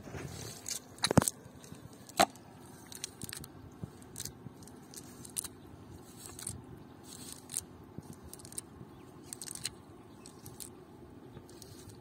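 Wet cast net being gathered and pulled over mud: scattered clicks, scrapes and soft rustles, with two sharper knocks about one and two seconds in.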